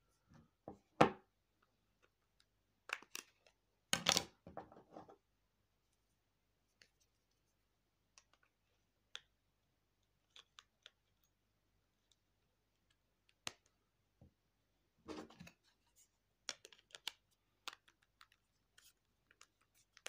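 Small plastic clicks and scrapes as a slide phone's battery is fitted and its back cover is clipped on, with a sharp knock about a second in and louder bursts of scraping around four seconds and again around fifteen seconds.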